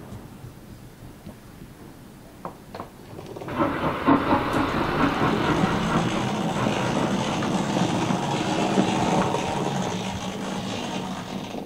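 O gauge model tank locomotive running along the layout track: a dense mechanical running rattle with clicks of the wheels on the rails, starting suddenly about three and a half seconds in and easing a little near the end.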